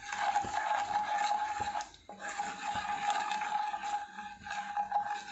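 Cumin seeds and asafoetida frying in hot oil in a pan, sizzling and crackling as a wooden spatula stirs them. The crackle is the sign that the tempering is ready for the ground spices.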